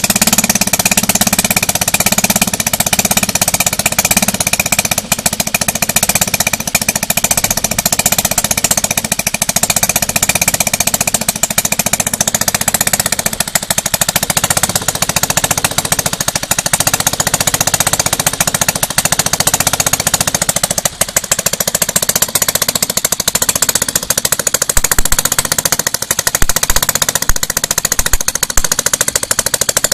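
Stihl 4-MIX single-cylinder four-stroke engine, converted for RC model use, running steadily at speed while driving a propeller. A few low thumps come near the end.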